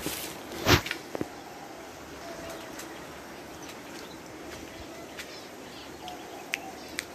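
Small aviary birds: a brief flutter of wings just under a second in, then faint scattered chirps and a few light clicks.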